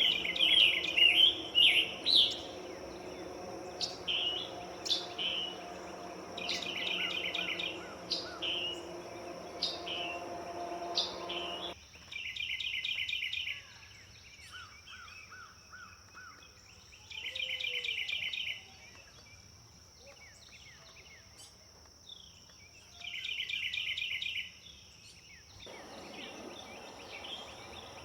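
Songbird calling: a run of short, sharp chirps for the first dozen seconds, then three buzzy trilled phrases of about a second and a half each, spaced about five seconds apart.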